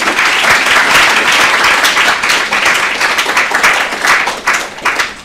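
Audience applauding, thinning to a few last claps near the end.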